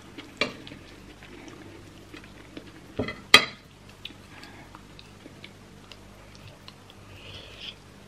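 A metal spoon scrapes and clinks against a ceramic plate while scooping rice, with two sharp clinks about three seconds in. Soft chewing and mouth clicks come between the strokes.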